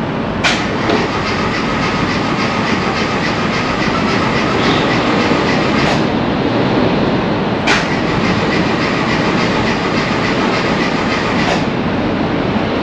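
Classic Mini's BMC A-series four-cylinder engine running steadily with a fast, rattly rhythm, and four sharp clicks heard through it.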